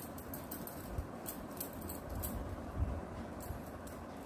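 Faint, irregular soft pats and light scuffs of a makeup sponge dabbing liquid foundation onto the skin of the neck, over a low steady hiss.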